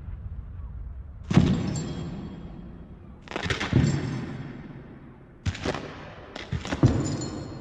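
Slow, heavy booted footsteps, about one every two seconds. Each lands with a loud thud and a long echoing tail, with a faint metallic ring after it, over a low rumble that dies away early.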